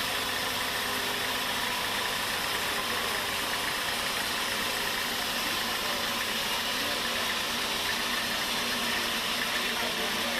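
Sawmill's engine running steadily, with no change in speed or load.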